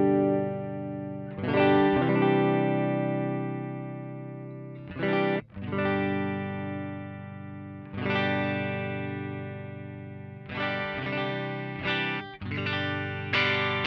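Suhr Classic S electric guitar played through a Joyo American Sound amp-simulator pedal: strummed chords, each left to ring and fade, one cut off short about five seconds in and several quicker strums near the end. The pedal's mid control is being turned between chords to show how it shapes the tone.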